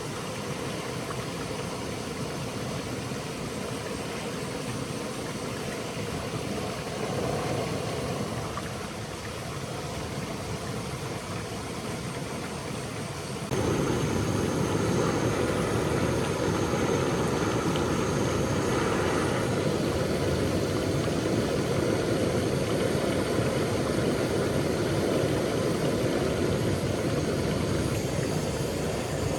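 Stream water flowing steadily, a continuous rushing; it becomes suddenly louder about halfway through and stays so.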